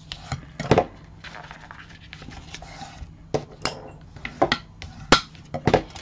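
Black cardstock being folded along its score lines and burnished flat with a bone folder: paper rustling and scraping, broken by several short, irregular clicks and taps.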